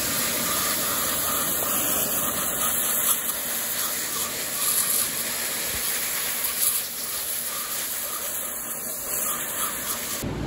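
Pressure washer spraying a jet of water onto an engine's rocker arm assembly to clean it: a steady hiss of spray that cuts off just before the end.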